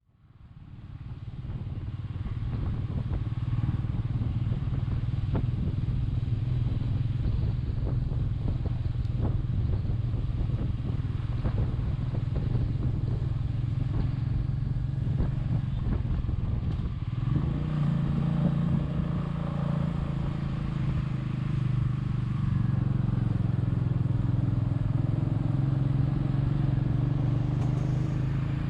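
Royal Enfield Meteor 350's single-cylinder engine running steadily under way, fading in at the start. Its note shifts and rises a little about two-thirds of the way through.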